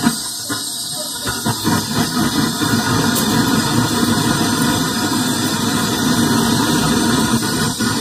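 Butane canister torch (a Hi-Cook burner head on a gas can) burning steadily with a loud hissing flame as it heats a thin aluminium fridge evaporator for brazing a leak patch with aluminium rod.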